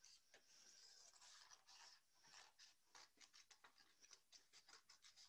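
Faint, repeated snips of scissors cutting along the fold of a folded paper plate.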